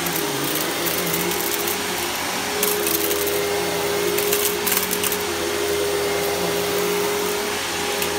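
Riccar bagged upright vacuum cleaner running while being pushed over carpet, a steady motor whine and airflow hiss whose pitch wavers with each push. There is a stretch of crackling in the middle.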